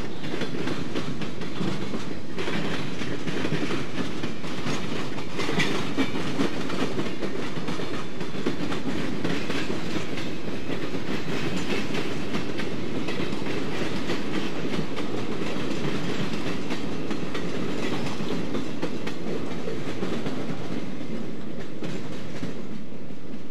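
Freight cars, open gondolas and boxcars, rolling steadily past, their steel wheels clicking and rattling over the track in a continuous rumble. The higher rattle fades near the end as the last cars go by.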